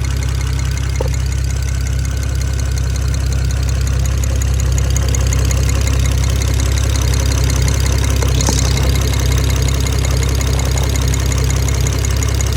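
BMW 335i's N54 twin-turbo straight-six idling steadily, with a knocking or ticking in its running that the owner is trying to place as valve tapping or a rod bearing.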